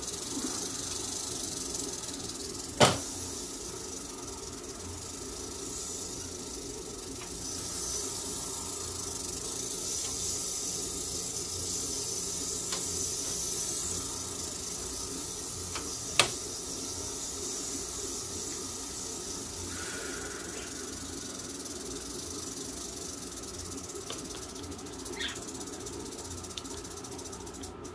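Western diamondback rattlesnake rattling in a steady, continuous buzz, the defensive warning of a disturbed rattlesnake. It swells in the middle and stops abruptly at the very end. Two sharp knocks come through, one about three seconds in and one about halfway.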